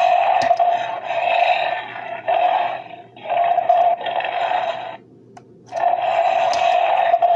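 The Lanard Jumanji Big Paw Bear toy's sound box plays its single recorded bear roar, set off again and again by pressing the figure's back. Growling bursts a second or two long follow one another with short breaks; the longest break comes about five seconds in.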